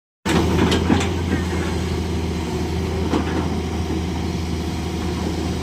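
Hitachi excavator's diesel engine running steadily, with a few sharp knocks, about a second in and again about three seconds in.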